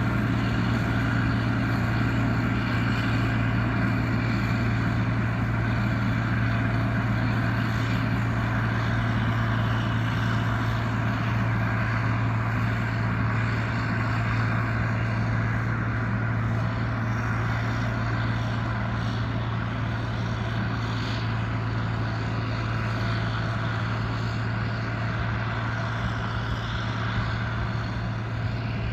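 Farm machinery engine running steadily under even load, a constant low drone that holds without revving or pausing.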